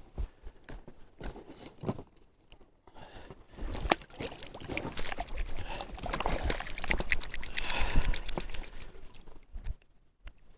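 Sparse clicks and rustles as a pike is handled and unhooked from a wire leader, then from about four seconds in water splashing and dripping as the pike is released by hand into the lake.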